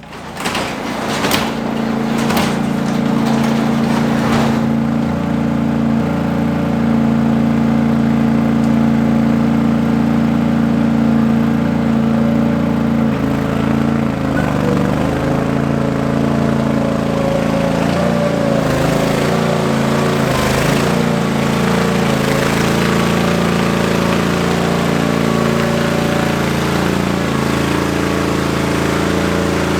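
Tractor engine starting up, then running steadily as the tractor is driven, with the engine speed wavering and shifting for a while midway.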